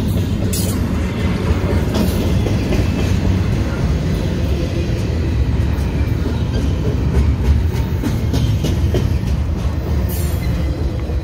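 Double-stack intermodal freight cars rolling past: a steady heavy rumble of steel wheels on rail, with sharp clicks here and there, the clearest about half a second in and near the end.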